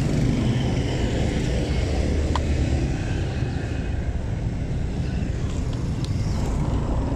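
Motorcycle engine running at low speed, a steady low hum with road and wind noise, as other motorcycles and a tricycle pass close by. A short tick about two and a half seconds in.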